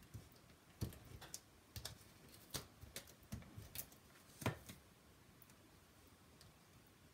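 Hands handling small cut paper pieces and setting them onto a card: a string of light taps, clicks and paper rustles. The loudest tap comes about four and a half seconds in, and the sounds stop about five seconds in.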